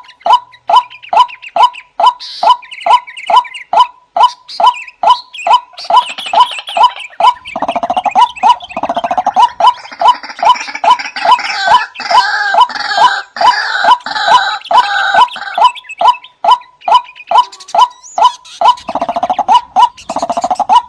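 White-breasted waterhen calling: a loud 'wak' repeated about two and a half times a second without a break. From about 7 s to 16 s, and again near the end, more overlapping calls join and thicken it into a chorus.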